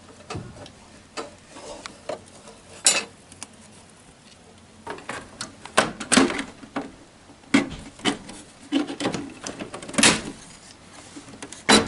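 Irregular clicks, clatters and knocks of hard parts being handled, a dozen or so spread unevenly, with the loudest knocks near the end.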